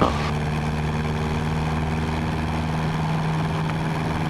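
Cessna 172N's four-cylinder Lycoming O-320 engine and propeller running steadily at full power, as the aircraft recovers from slow flight.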